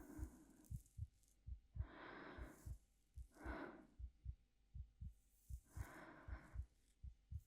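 Heartbeat thumping in steady double beats, about eighty a minute, with a few soft, slow breaths over it, the longest about two seconds in.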